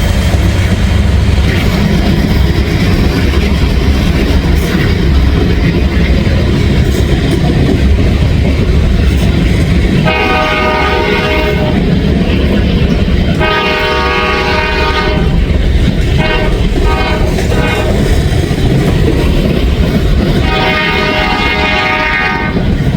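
Freight train's diesel locomotives rumbling past with wheels clacking on the rails, while the locomotive horn sounds the grade-crossing pattern: two long blasts, a short one, and a last long blast starting near the end.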